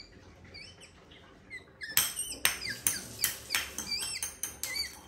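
Capuchin monkey squeaking: faint high chirps at first, then from about two seconds in a quick run of louder, sharp squeaks, several a second.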